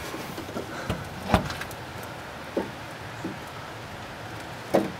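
Hose clamp pliers working a spring hose clamp onto a rubber fuel hose: a few short metallic clicks, the sharpest about a second and a half in, over steady wind noise on the microphone.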